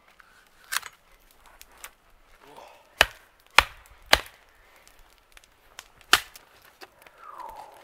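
Hatchet chopping wood: five sharp strikes at uneven intervals, three of them close together in the middle.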